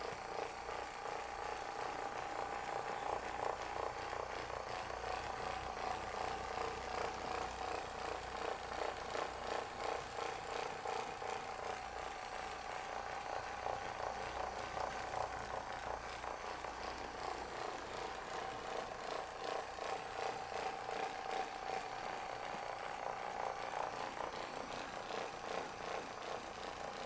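Handheld percussion massage gun running with a steady hum and rapid pulsing, its level wavering as it is worked over the muscles.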